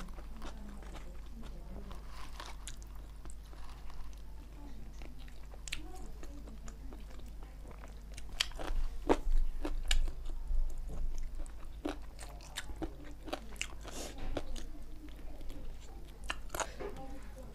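Close eating sounds of chicken curry with rice eaten by hand: chewing and biting into chicken, with a scatter of sharp clicks, loudest about halfway through.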